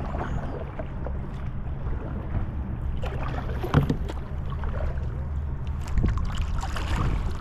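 Kayak on open water: splashing and water slapping from paddling over a steady low rumble, with a few sharp knocks, the loudest about four seconds in and again around six seconds.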